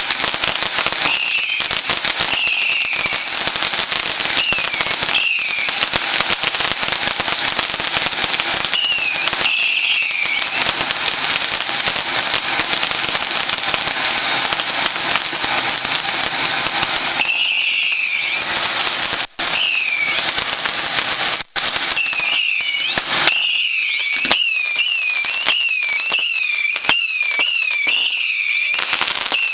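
Garden fireworks going off: a dense, continuous crackling with repeated whistling shrieks, each a short pitch sweep that drops and then rises again. The whistles thin out in the middle, where the crackle carries on alone, and come thick and fast over the last several seconds.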